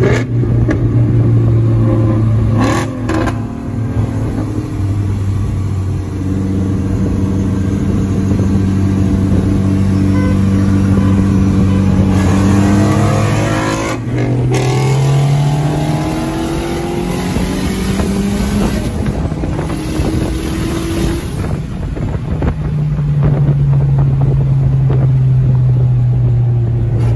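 Toyota Camry engine heard from inside the cabin, revving hard under full-throttle acceleration. The pitch climbs, then drops as gears are shifted, once about halfway through and again near the end, before holding steady.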